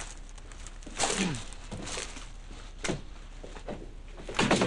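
A man on crutches hobbling across a room: scattered crutch knocks and thuds, a short falling groan about a second in, and a louder cluster of knocks near the end.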